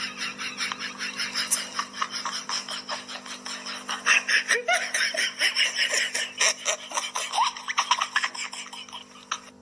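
Wheezy, breathy laughter in rapid pulses over a steady low hum, fading out near the end.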